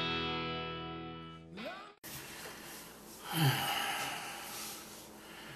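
Intro music: a distorted electric guitar chord rings out and slowly fades, ending in a rising slide, then cuts off abruptly. Room tone follows, with one short breathy sound about three and a half seconds in.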